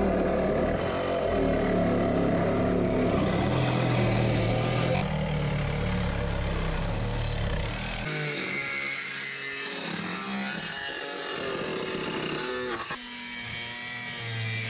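Angle grinder with a cut-off wheel cutting through a pickup's cab sheet metal; the motor runs continuously, its pitch wavering in the second half as the wheel bites into the metal.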